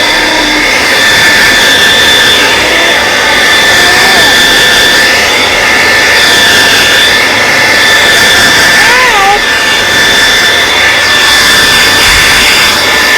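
TRESemme hair dryer running steadily: a loud rush of blown air with a steady high whine from its fan motor.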